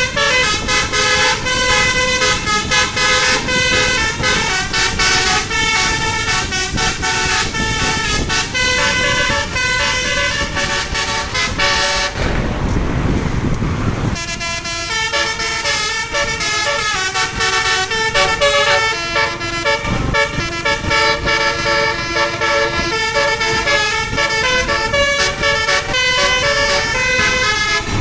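Bus telolet horn of the Basuri multi-tone type, sounding loud, quick melodies of stepped notes one after another. About twelve seconds in the tune breaks off for about two seconds of rushing noise before the horn melodies start again.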